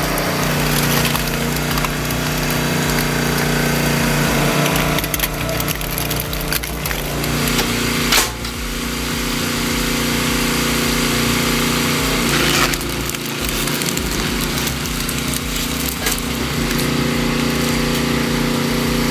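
Heavy machinery running with a steady hum over loud noise. The sound changes abruptly about eight seconds in and again about thirteen seconds in.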